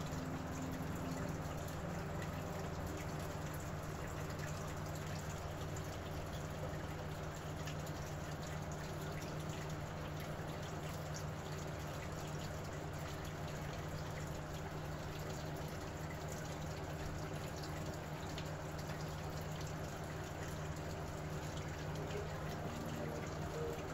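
Steady background noise: an even hiss with a low, constant hum beneath it, unchanging throughout.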